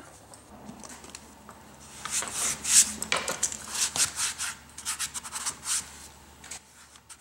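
Hands rubbing and scratching over a fabric suitcase and the plastic housing of its telescoping handle, in a run of uneven scratchy strokes starting about two seconds in.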